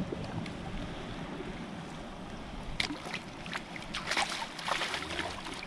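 A giant trahira (trairão) being let go into the river, with a few sharp splashes about three seconds in as it swims off, over a steady wash of moving water.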